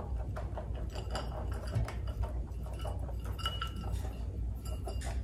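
Chopped pecans rattling in a stainless steel measuring cup as they are shaken out, with light metallic clinks and ticks and a short ring or two from the cup.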